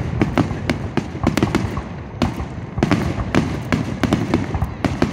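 Fireworks going off: a rapid, irregular string of sharp crackling pops, with a few louder bangs around the middle.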